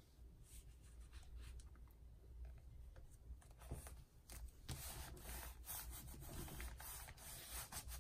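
Faint rubbing of a glue stick on paper and handling of a painted paper card, picking up about halfway in with a run of short scrapes.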